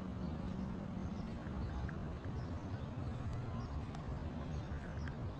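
Steady outdoor ambience with a low rumble and a few faint, short high chirps scattered through it.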